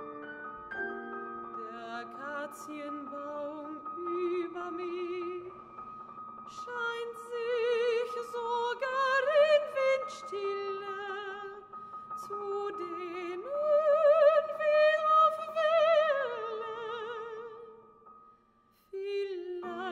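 Mezzo-soprano singing a slow classical art song with wide vibrato, accompanied by piano. The piano holds chords first and the voice comes in about two seconds in, growing loudest in sustained high notes through the middle and second half; near the end the music drops almost to silence before a new piano chord.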